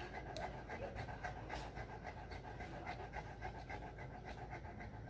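St. Bernard panting in a quick, even rhythm while mounted during mating.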